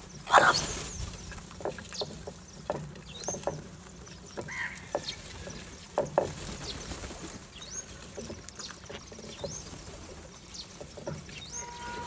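A flock of house crows feeding from clay dishes on concrete: many short, sharp taps and clicks of beaks pecking at the food and dishes, with one loud sudden burst about half a second in. Short high chirps come and go throughout.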